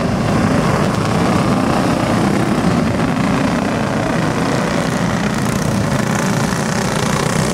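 A pack of racing go-kart engines running together at racing speed around a dirt track, blending into one steady drone.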